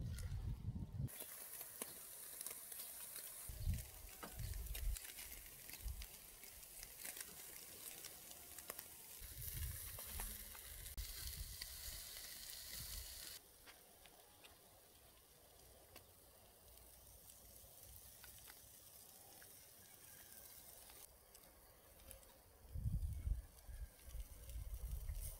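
Pork ribs grilling in a wire basket over charcoal: a faint sizzle with many small crackles and pops from fat on the hot coals. About halfway through the sizzle drops away to a quieter background, with a few low thumps near the end.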